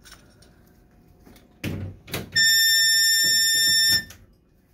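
Two knocks as gas hoses are pushed into the wall air and oxygen outlets, then a loud, steady, high-pitched alarm tone from the air-oxygen blender that lasts about a second and a half and cuts off suddenly.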